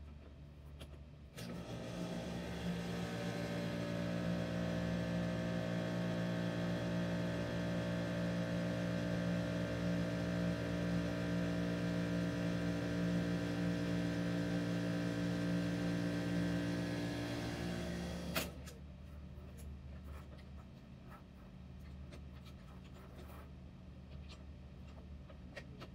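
Electric motor of a bench wire-handling machine starting and running with a steady hum while it draws stainless wire rope across its drums, then cutting off suddenly with a click about eighteen seconds in.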